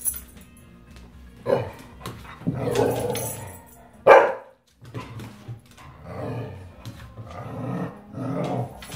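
Two dogs play-fighting: a series of growls and barks, with one sharp, loud bark about four seconds in.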